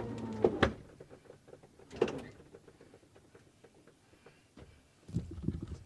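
RV slide-out motor running with a steady hum, then stopping abruptly under a second in as the slide reaches its travel position. A few faint knocks and clicks follow.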